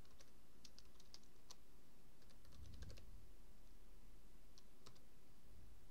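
Faint typing on a computer keyboard: quick runs of keystrokes through the first three seconds, then two lone clicks near the end.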